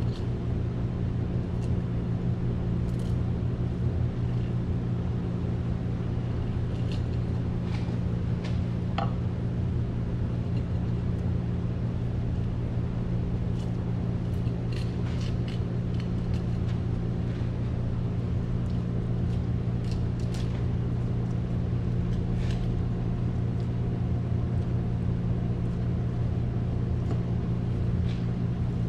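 Steady low hum of kitchen machinery, with scattered light taps and clicks as a whole bonito is handled and cut on a wooden board.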